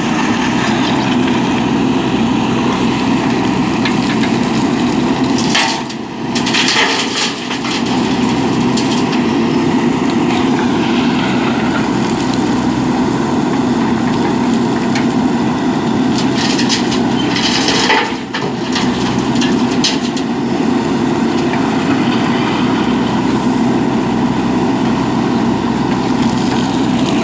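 JCB 3DX backhoe loader's diesel engine running steadily, with two brief bursts of clatter about six and seventeen seconds in.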